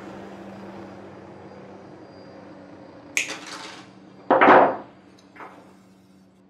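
Small metal knife parts and a coil of wire handled on a wooden workbench: a few short clatters and rustles over a low hum, the loudest about four and a half seconds in.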